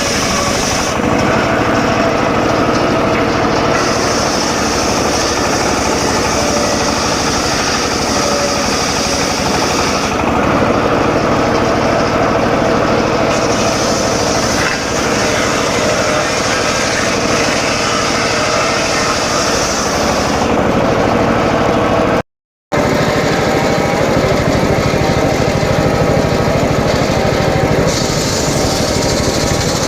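Home-built circular saw rig running loudly and steadily while sawing teak logs, its higher hiss coming and going in stretches of a few seconds. The sound drops out for a moment about two-thirds of the way through.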